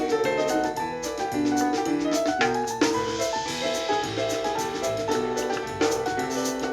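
Dance track with a keyboard melody over a beat, playing from a Jojocat C10 mini Bluetooth speaker and picked up by a microphone.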